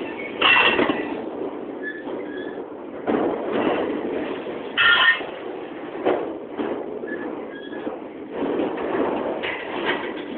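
Freight train cars rolling past close by, their wheels rumbling and clattering steadily on the rails. Short high-pitched wheel squeals break through now and then, two of them louder, about half a second and about five seconds in.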